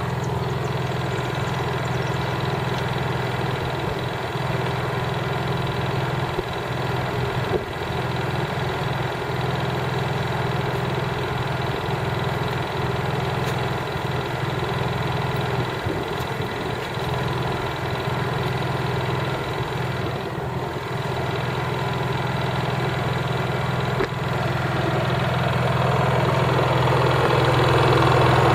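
Honda EU3000is inverter generator's single-cylinder engine running steadily in eco mode with no load, a low, even hum that is crazy quiet. It grows a little louder over the last few seconds.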